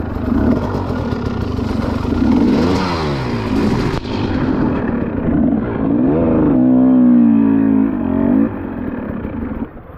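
Enduro dirt bike engine running and being revved: the pitch swings up and down about three seconds in, then holds a steady higher note for about two seconds before dropping away abruptly.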